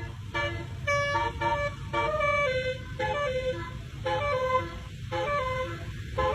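Basuri telolet musical horn playing a quick melody of short horn notes, one after another at changing pitches, over a low rumble.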